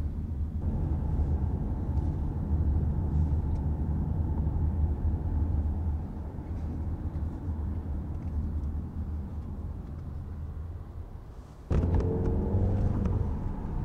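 Steady low rumble of a car's engine and tyres heard from inside the cabin while driving. It eases slightly about six seconds in, then turns abruptly louder with a wavering hum near the end.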